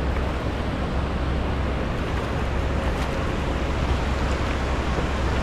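Shallow river water rushing and rippling over stones, with wind rumbling on the microphone.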